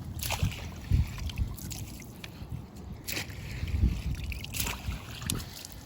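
Shallow river water splashing and sloshing in a handful of short splashes, over a steady wind rumble on the microphone.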